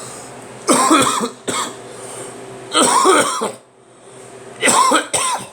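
A man coughing in several short hacking bouts, the last a quick double cough near the end. It is a congested, chesty cough that he puts down to pollen.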